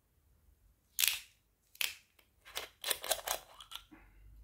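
Metal screw cap of a green glass soju bottle being twisted open: a sharp click about a second in, another a moment later, then a quick run of crackling clicks.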